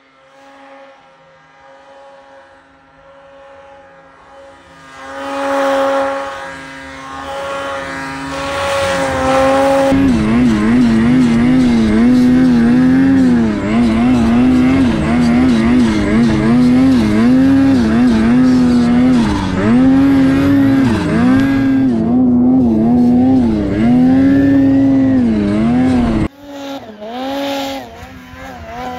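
Snowmobile engine running, at first farther off and rising around five seconds in. From about ten seconds the close, loud two-stroke of a 2024 Ski-Doo Summit X turbo takes over, its pitch swinging up and down as the throttle is worked through deep powder. Near the end the sound drops suddenly to a quieter, more distant sled.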